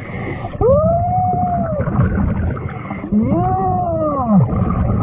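A person's voice giving two long wailing howls, each rising and then falling in pitch and lasting over a second; the second starts about three seconds in.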